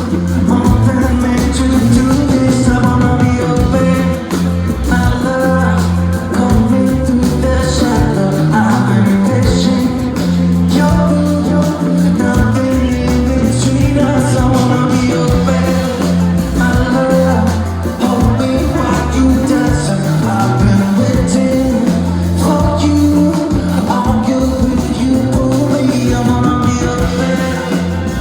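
A live band playing a song with a singer, a steady bass line and beat, loud throughout.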